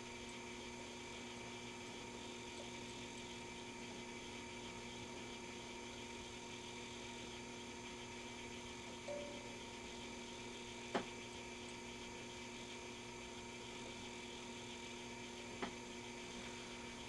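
Faint, steady electrical mains hum made of several fixed tones over a low hiss. Two light clicks come about eleven and fifteen seconds in.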